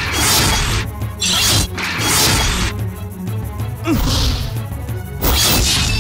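Cartoon action music with a steady low beat, overlaid by a series of loud whooshing slash and impact sound effects about a second apart as robotic claws strike.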